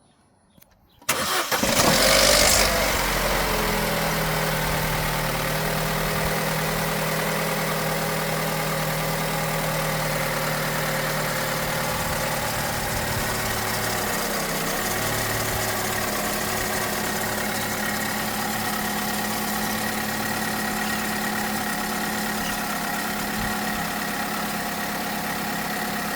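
Opel Corsa D 1.2 four-cylinder petrol engine cold-starting about a second in. It flares up briefly, then settles into a steady idle that eases lower partway through. The owner asks whether a rattle in it is the timing chain.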